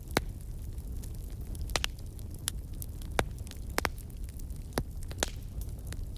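Campfire burning: a steady low rumble of flames with irregular sharp crackles and pops of burning wood, about one or two a second.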